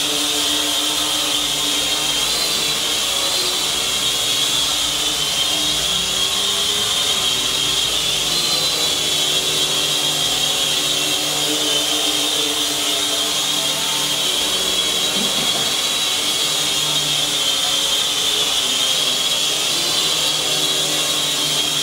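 Cheerson CX-33S tricopter hovering: its motors and propellers give a steady high whine over a lower buzz, the pitch wavering slightly as the throttle is corrected.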